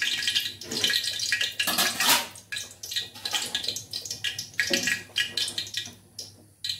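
Hot frying oil in a wok sizzling, with many irregular crackles.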